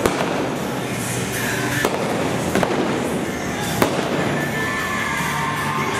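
Four shots from a .45 revolver firing black powder blanks during a galloping mounted-shooting run, each a sharp crack over a steady arena din. The shots are spread over the first four seconds, with two close together in the middle.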